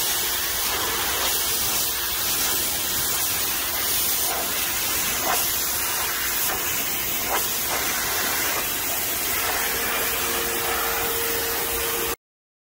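High-pressure water jet from a pressure washer wand hissing steadily against weathered wooden fence boards as it strips off the grey grime, with a faint steady whine underneath; it cuts off suddenly near the end.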